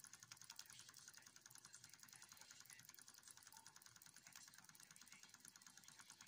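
Wilesco D2 miniature steam engine running: its small oscillating cylinder and brass flywheel give a faint, rapid, even ticking.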